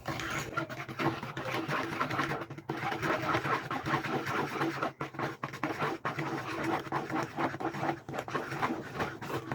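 Spoon stirring and scraping in a mixing bowl as flour is worked into batter, in quick irregular strokes.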